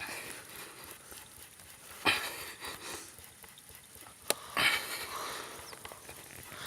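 Two short breathy puffs of air from a person, about two seconds in and again near five seconds, with a sharp click just before the second.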